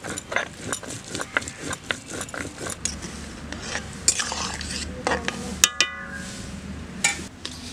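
Stone grinder scraping and knocking against a stone slab as dried red chillies are ground, in quick repeated strokes. This gives way to a steady hiss from a metal wok of fig pieces boiling in water, with a single ringing metal clang a little before six seconds.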